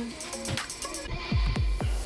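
Electronic background music with a steady beat of deep kick drums that slide down in pitch, about two a second, under ticking hi-hats.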